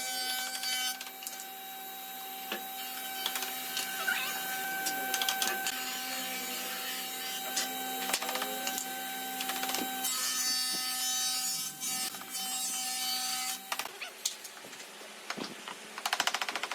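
Woodworking power tool running with a steady whine while working wood, cutting out about 14 seconds in, then a few knocks and a rapid rattle near the end.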